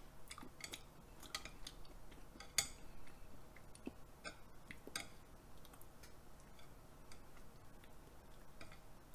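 Metal chopsticks clicking and tapping against a plate as pieces of raw beef are picked up: a scatter of faint, sharp clicks, most in the first five seconds, the loudest about two and a half seconds in.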